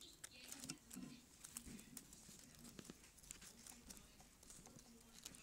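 Near silence, with faint scattered clicks and light rustles and a faint low hum underneath.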